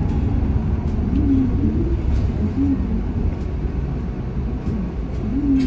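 Steady low engine and road rumble inside a moving city bus.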